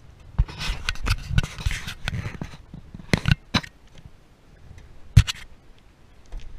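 Handling noise as the camera is moved and repositioned: scraping and rubbing for about two seconds, then a few sharp clicks and knocks, the loudest a little after five seconds in.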